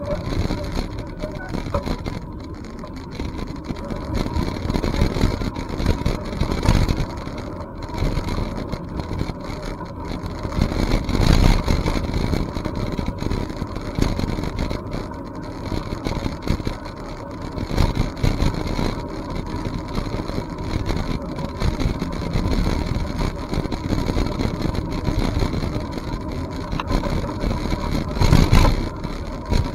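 Wind rumbling on the microphone of a camera carried on a moving bicycle, mixed with rolling noise. The noise swells and fades unevenly, and a faint steady whine sits underneath.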